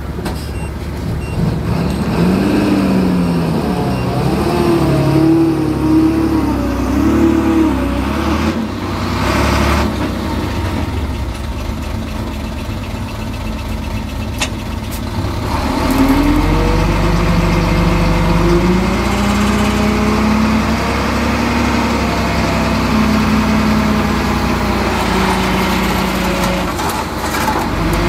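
Heavy earthmoving machine's diesel engine working under load, revving up and down in two long spells, about two seconds in and again from about sixteen seconds. A brief hiss about nine seconds in.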